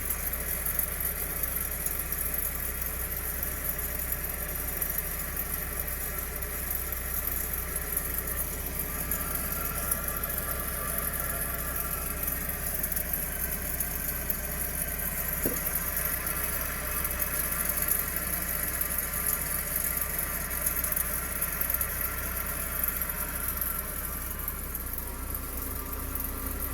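Worn rear wheel bearing of a Toyota GT86 making a steady mechanical drone as the driven rear hub turns, with the brake caliper and disc removed. The noise is the sign of a failing bearing that needs replacing.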